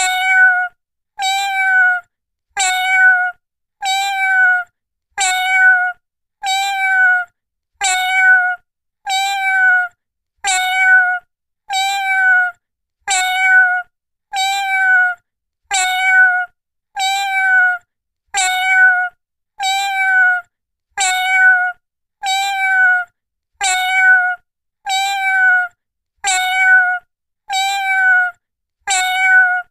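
A cat meowing: the same short, high-pitched meow repeated at an even pace, a little more than once a second.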